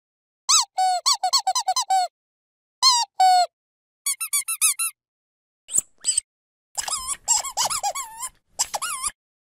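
A dog's squeaky toy squeezed over and over: quick runs of short squeaks that bend up and down in pitch, in bursts separated by brief gaps of dead silence. A higher, faster run comes about four seconds in, and a busier, scratchier run comes near the end.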